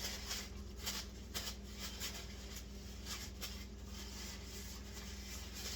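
Faint, irregular small clicks and rustles of someone eating a chicken drumstick, chewing and handling the wing, over a steady low electrical hum.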